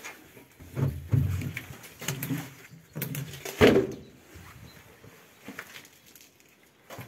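Footsteps on a debris-strewn floor: irregular scuffs and knocks, with a louder thud about three and a half seconds in.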